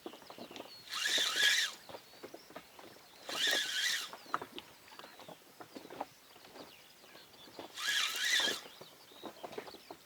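Spinning reel cranked in three short spurts with pauses between, the stepped retrieve of a jig. Faint soft ticks fall between the spurts.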